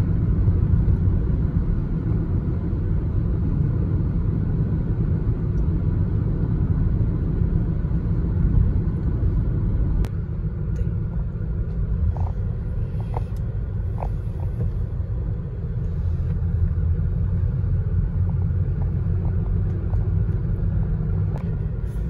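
Road noise inside a moving car: a steady low rumble of tyres and engine. A click comes about ten seconds in, and after it the sound is a little quieter.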